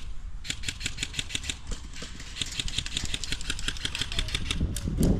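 Airsoft guns firing on full auto, a rapid string of sharp cracks at about nine shots a second, starting about half a second in.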